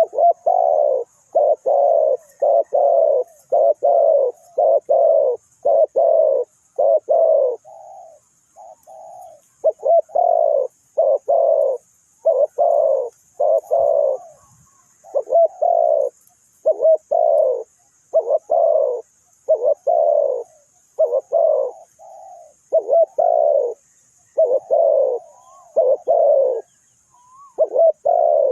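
Spotted dove cooing in long repeated series of low notes, with short pauses about eight and fourteen seconds in. A faint high chirping runs underneath.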